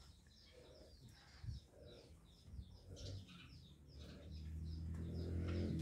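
Small birds chirping over and over, with a low steady hum that grows louder over the last couple of seconds.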